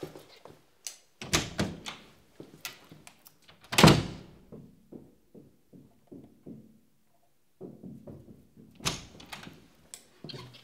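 Knocks and thuds in a small room: a quick run of knocks about a second in, a heavy thunk about four seconds in followed by fading light clicks, and another cluster of knocks near the end.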